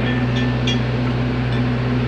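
Stick (SMAW) welding arc crackling and hissing steadily over a constant low hum, with a faint ticking about four times a second.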